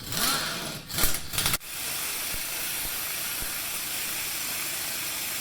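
A few metal clanks, then a steady hissing rush of a pneumatic air tool running continuously, typical of an air impact wrench driving the impact-rated press bolts of a hub removal kit against the steering knuckle to force a corroded wheel hub off.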